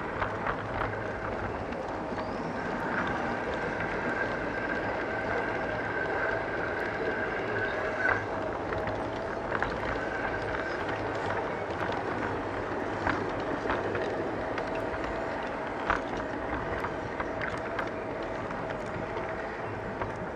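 LGB G-scale model train running along garden-railway track: a steady whine from the electric motor, with scattered sharp clicks as the wheels pass rail joints and points.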